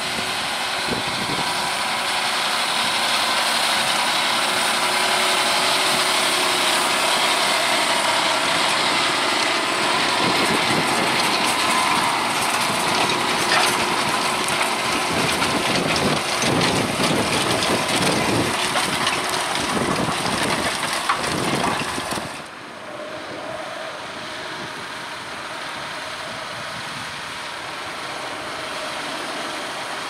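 John Deere 6250R tractor's six-cylinder diesel running under load as it pulls a seven-furrow reversible plough through the soil, with crackling as the plough passes close. About two-thirds through it drops abruptly to a quieter, more distant engine sound.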